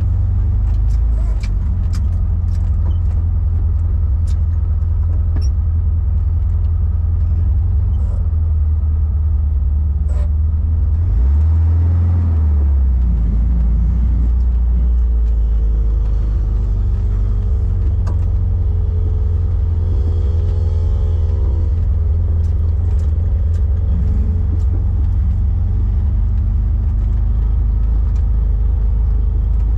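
A car driving, with a steady, loud low engine and road drone. Light ticking rattles come through for the first several seconds and then stop. A higher droning tone wavers up and down for several seconds past the middle.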